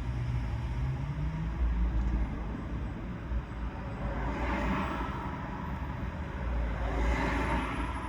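Toyota Prius driving on the road: steady low tyre and road rumble, with a faint rising hum in the first second and a half. Two swells of hiss, like vehicles passing, come about four and seven seconds in.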